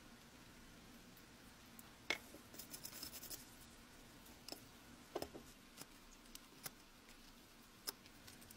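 Faint small clicks and scraping of a thin metal tool probing the corroded body of a cast-metal elephant table lighter: a sharp click about two seconds in, a short run of scratching right after, then a few scattered single clicks.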